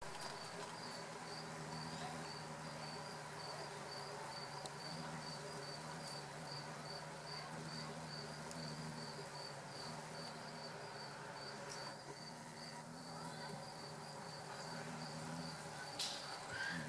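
An insect chirping steadily in the background, short high chirps about three a second, over a steady low hum. A brief sharp click sounds near the end.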